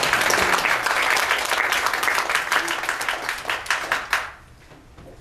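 Audience applauding, the clapping thinning out and stopping about four seconds in.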